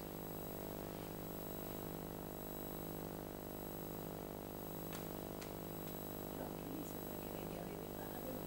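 A steady electrical hum made of many even tones, running unchanged, with two faint clicks about five seconds in.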